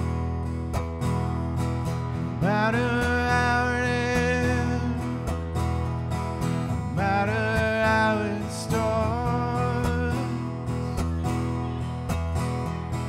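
Solo live acoustic guitar strummed while a man sings, with two long held vocal notes that slide up into pitch, about two and a half seconds in and about seven seconds in.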